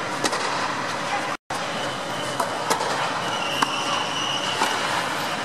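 Tennis balls struck by rackets and bouncing on an indoor court: several sharp knocks over a steady background hum of the hall, with a brief dropout to silence about a second and a half in.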